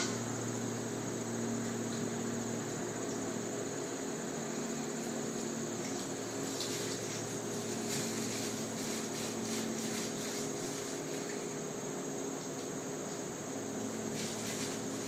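Steady low hum and hiss of room noise, with a few faint short clicks and scuffs in the middle and near the end.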